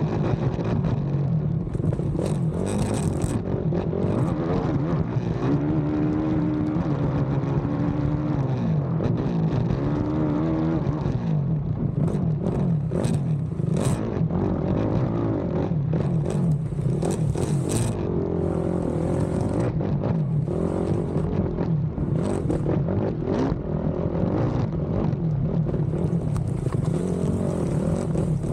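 Race ATV's engine running hard under a rider-mounted camera, revving up and down through the gears with a clear rise in pitch in the middle. Sharp knocks and clatter come in clusters in the second half, from the quad over rough track.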